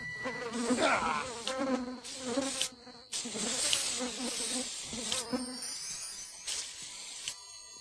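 A buzzing insect, its pitch wavering up and down, with several spurts of hiss from an aerosol spray-paint can, the longest lasting about two seconds.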